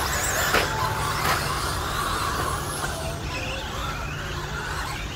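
13.5-turn brushless RC stadium trucks racing on dirt, their electric motors whining as the pitch rises and falls. Two sharp knocks come about half a second and just over a second in, over a steady low hum.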